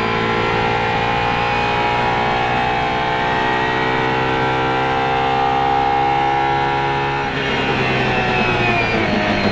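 Apollo IE's V12 heard from inside the cabin, accelerating hard at high revs, its note climbing slowly and steadily for about seven seconds. Then the note breaks off abruptly and the revs start rising again.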